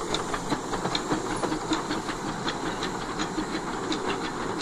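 Miniature 15-inch gauge steam locomotive moving slowly over pointwork, its wheels clicking over the rail joints and crossover with a steady hiss of steam.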